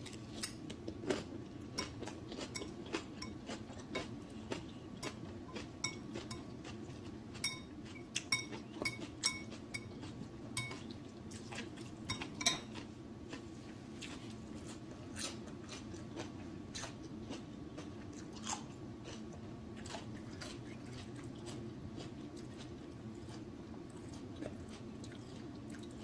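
Close-miked eating of a shrimp boil: chewing with many sharp wet mouth clicks, over a steady low hum. A few short ringing clinks of tableware come in the middle, and the clicks thin out towards the end.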